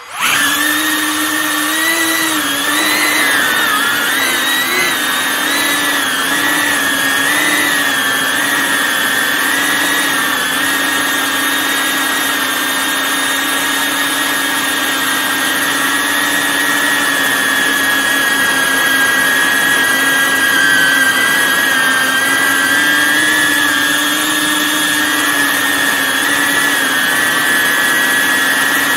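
Small drone's electric motors and propellers spinning up abruptly and then running with a loud, steady whine. The pitch wavers for the first few seconds as it lifts off and manoeuvres, then holds steady in flight.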